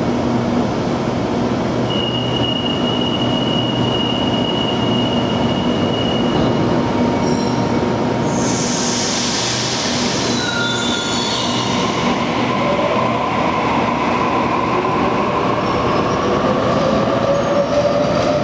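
Sydney Trains double-deck electric train in an underground station, standing at the platform with a steady electrical hum. About halfway through comes a short rush of air hiss. From about two-thirds of the way in, a rising whine starts as the train accelerates away.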